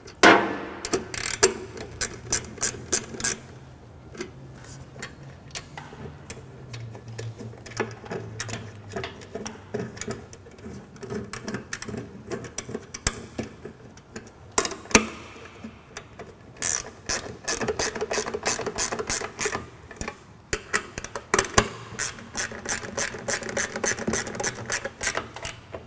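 A 10 mm ratcheting wrench clicking in quick, even runs as it tightens the bolts on a metal switch bracket. The clicks come in several separate runs, with pauses between them while the wrench is repositioned.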